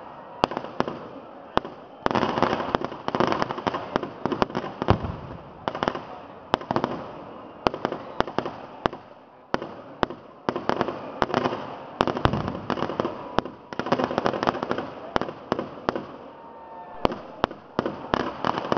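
Festival fireworks going off in rapid volleys: dozens of sharp bangs in quick clusters, each trailing off in an echoing rumble before the next set.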